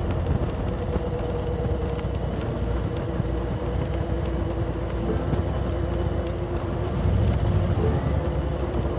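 Motorcycle engine running at steady revs while riding, mixed with wind and road noise.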